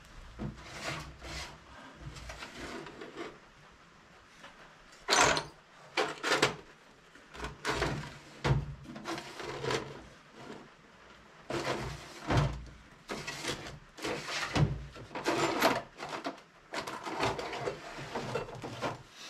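Irregular knocks and clatter of metal pieces being moved and sorted by hand, a rummage for a piece of tool steel. The sharpest bangs come about five, twelve and fourteen seconds in.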